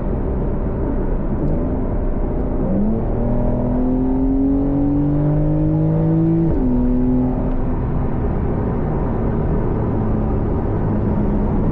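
Porsche 911 Carrera S flat-six engine, heard from inside the cabin in Sport Plus mode. It runs steadily, then the revs climb under acceleration for about four seconds and drop suddenly with a gear change, after which it settles to a steady cruise.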